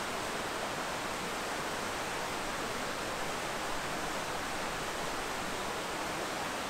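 Steady rushing of a mountain stream running below, an even, unbroken wash of water noise.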